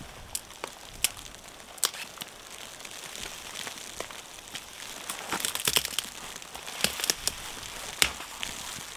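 Dry dead branches snapping and crackling as they are broken and gathered by hand: a series of sharp cracks, with a burst of close crackling about five to six seconds in.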